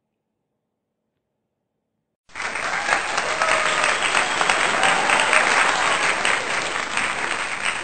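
Applause from a large audience, starting abruptly after about two seconds of near silence and keeping up steadily.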